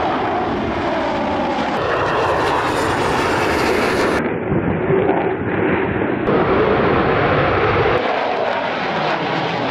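Fighter jet engines running at high power: a loud, steady rushing jet noise. The sound changes abruptly about four, six and eight seconds in, as one aircraft recording gives way to another.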